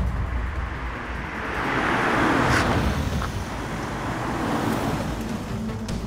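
A car passing by, its engine rumbling and the road noise swelling to a peak about two seconds in, then easing off.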